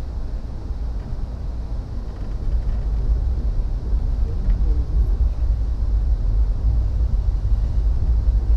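Steady low rumble of a moving vehicle heard from inside, growing somewhat louder about two and a half seconds in, with faint voices in the background.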